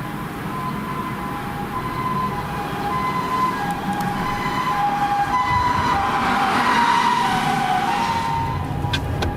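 Japanese ambulance's two-tone siren alternating between a higher and a lower note, growing louder and passing close about seven seconds in, with a rush of road noise from the vehicle under it.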